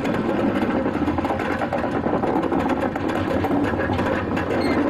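Scrapped steam locomotive rolling slowly past while being hauled dead. Its running gear and rods clatter over the rails in a fast, even rattle.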